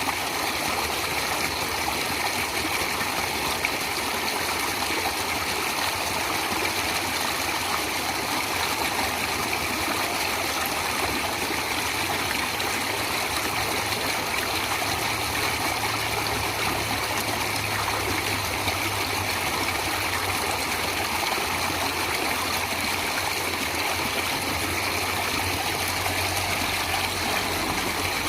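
Flowing stream: steady, even rush and trickle of running water.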